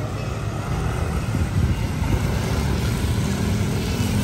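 Motor scooters riding past one after another on a wet road, engines running and tyres on the wet pavement, with wind on the microphone. The sound grows a little louder as more of them come by.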